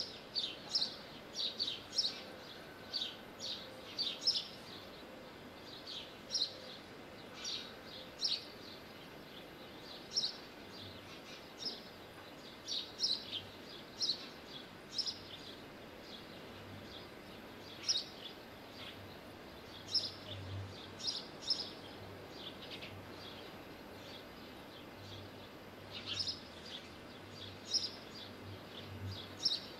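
Small birds chirping: many short, high calls, often in quick runs of two to four, scattered irregularly over a steady outdoor background. A faint low hum comes in during the second half.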